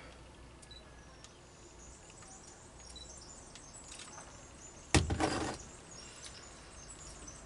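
A glass beer bottle set down on the table about five seconds in: one sharp knock followed by a brief louder clatter. Otherwise low background with a few faint light clicks.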